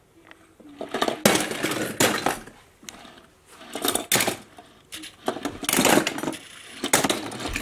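Die-cast metal toy cars clinking and clattering against each other and the table as they are picked up and moved, in several short bursts.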